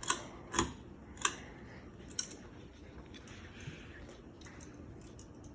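Hampton Bay Marquesas ceiling fan running quietly on low speed, with a few sharp clicks in the first second and a half, then only faint small ticks.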